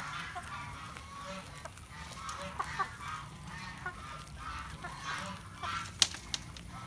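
A group of guinea pigs squealing over and over, many short high calls overlapping, with a sharp click about six seconds in.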